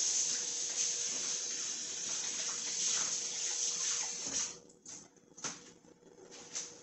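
Kitchen tap running into the sink with a steady hiss of water, shut off about four and a half seconds in, followed by a few light knocks.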